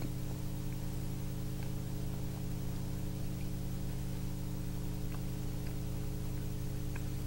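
A steady low hum in a quiet hall, with a few faint small clicks scattered through it.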